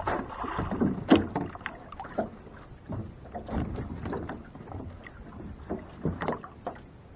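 Irregular knocks, bumps and splashes around a small fishing boat's hull as a stringer rope is handled over the side, the loudest knock about a second in.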